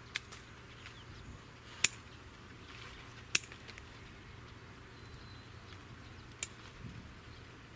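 Four sharp snaps, a second or more apart, as loquat leaves are picked off the tree by hand.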